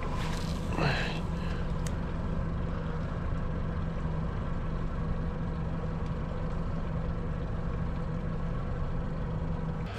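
Boat motor running steadily with an even low hum. There is a brief falling sound about a second in.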